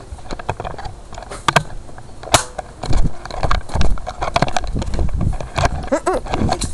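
Handling noise from a handheld camera being jostled and swung around: irregular rubbing and knocks, heavy low thuds through the middle, and one sharp click about two and a half seconds in.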